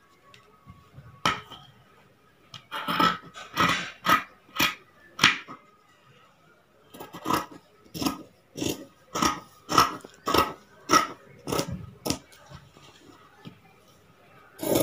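Tailor's scissors cutting through blouse fabric: crisp snips, a loose cluster about three seconds in, then a steady run of roughly two snips a second.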